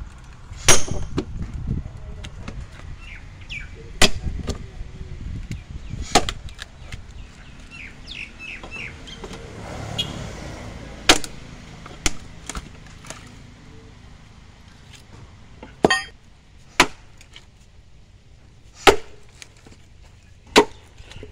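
Steel splitting wedges being driven into a log with the back of an axe: about nine sharp metal-on-metal strikes, a few seconds apart, some with a brief ring. The log is splitting lengthwise along the wedges.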